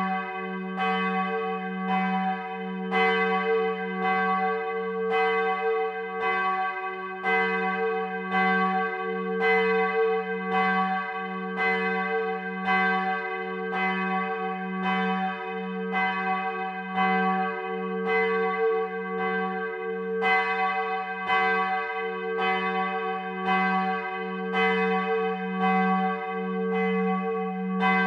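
Church bells from a seven-bell peal ringing, with strikes about every three-quarters of a second over a steady, overlapping hum.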